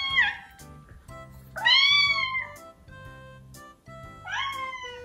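Young kitten meowing, high-pitched: a meow trailing off at the start, a loud, arching meow about two seconds in, and another near the end.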